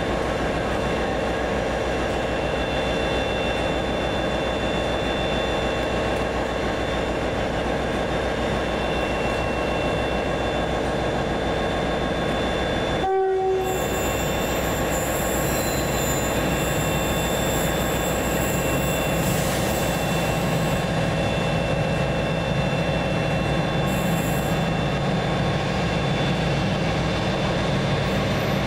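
Railway locomotive running steadily at close range, a constant mix of several steady tones over a noisy rumble. After a brief break about halfway through, a thin high squeal joins for several seconds and comes back briefly near the end.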